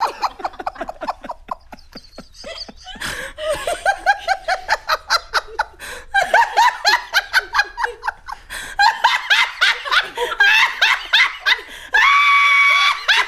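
A woman laughing uncontrollably in rapid, pitched pulses, rising into a long held high squeal about a second before the end.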